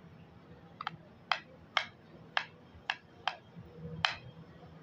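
A metal spoon clicking against a plastic plate as it scoops rice and curry: about eight sharp clicks at an uneven pace, roughly two a second.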